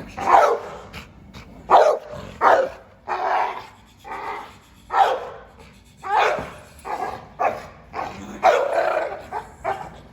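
American Staff bully dog barking again and again, about a dozen loud barks spread unevenly, some drawn out. It is barking at a toy dog that it has taken for a rival.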